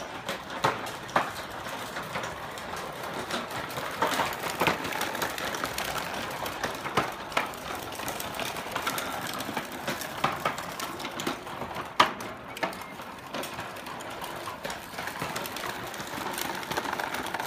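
Hard plastic wheels of a child's ride-on tricycle rolling over concrete pavers, a steady rattling clatter with scattered sharp clicks.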